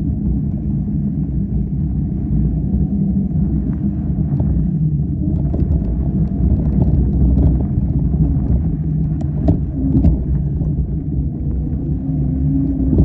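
Steady low rumble of a ride through deep trail sand, with a few sharp clicks about nine and ten seconds in.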